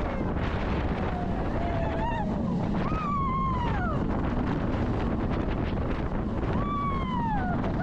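Heavy wind rushing over the microphone on a moving roller coaster, with riders letting out long whooping screams that rise and fall in pitch, about three seconds in and again near the end.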